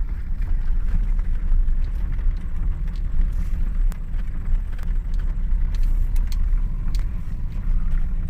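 A car driving, heard from inside: a steady low rumble of engine and tyres with scattered small knocks and rattles.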